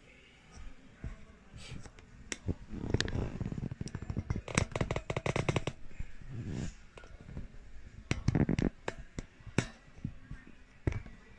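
Hands handling a Dell Latitude 7280 laptop on a workbench: irregular rubbing and scraping with quick runs of clicks, starting a couple of seconds in, and a few single sharp knocks near the end.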